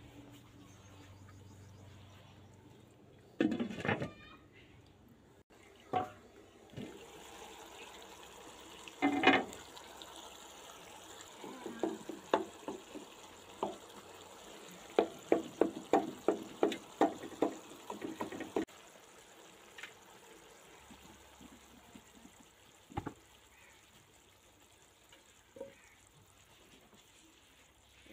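A wooden spoon stirs a bottle gourd curry simmering in a non-stick wok. It knocks against the pan a few times, then taps it in a quick run of about three a second for a few seconds past the middle, over the soft bubbling of the sauce.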